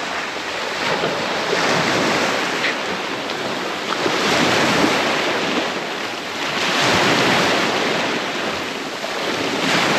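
Small waves breaking and washing up over a rocky, sandy shore, the surf surging and easing every two to three seconds.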